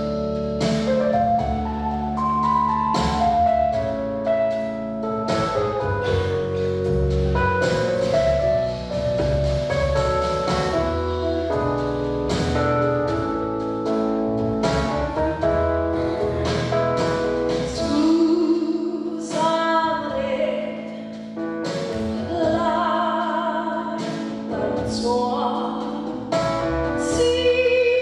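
A woman sings a song solo into a microphone over instrumental accompaniment. In the second half she holds long notes with vibrato.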